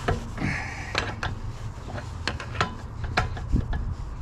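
Thread-cutting die being turned by hand on a car axle's damaged spindle-nut threads to recut them: irregular metallic clicks and creaks, with a short scraping rub about half a second in.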